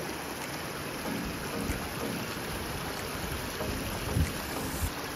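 Steady rushing noise like rain or running water, with faint music underneath.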